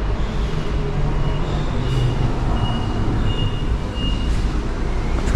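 Steady low rumble of bus engines and traffic at a busy bus terminal, with a thin high tone that comes and goes.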